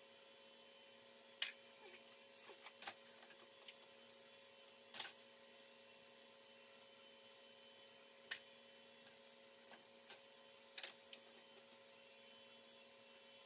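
Faint steady hum with scattered light clicks and taps of hand tools on metal, the loudest about a second and a half and five seconds in, as the water pump is unbolted from a 3.5 V6 engine.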